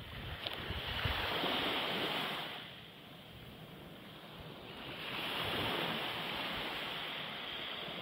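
Small waves washing up a pebble beach: two swells of surf hiss, the first about a second in and the second about five seconds in, with a quieter lull between.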